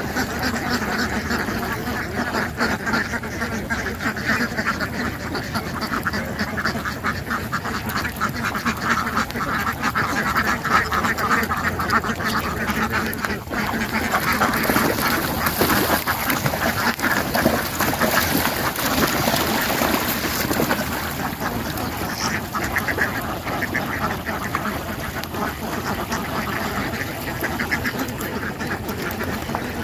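A large flock of domestic Indian Runner ducks quacking without pause, many birds calling over one another in a dense chorus.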